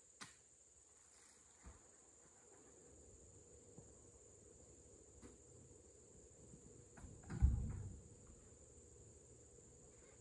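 A steady high insect drone, like crickets, with a few light knocks. About seven and a half seconds in comes a single heavy thud, an oil palm fruit bunch landing on the truck bed.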